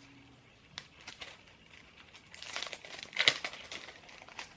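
Packaging crinkling and rustling as it is handled, with a sharper crackle about three seconds in.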